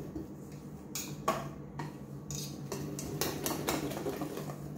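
Wire whisk beating cake batter in a stainless steel bowl, the wires clinking and scraping against the metal in uneven strokes.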